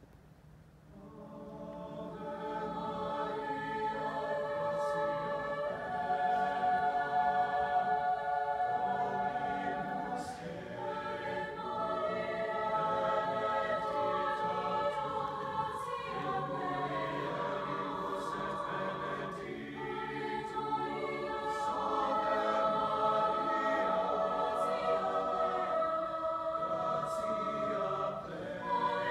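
Mixed choir singing, entering softly about a second in and swelling over the next few seconds into full, sustained chords, heard from the audience seats of a concert hall.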